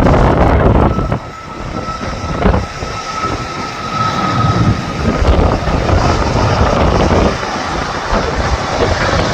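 Strong wind buffeting the microphone in uneven gusts, easing for a few seconds after about a second in. Through that lull a faint steady high whine can be heard.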